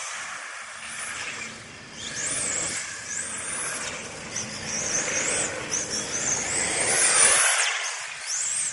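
Radio-controlled model cars racing on an asphalt track, their motors making a high whine that rises and falls in pitch over and over as they speed up and slow down, loudest about seven seconds in.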